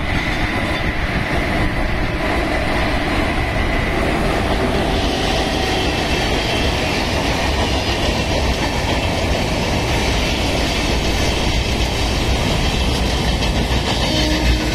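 Twin Indian Railways WAG-7 electric locomotives running past at speed, followed by a rake of loaded covered goods wagons: a steady, loud rumble of steel wheels on the rails with clickety-clack from the wagons. A thin high whine from the locomotives fades after about four seconds, once they have gone by.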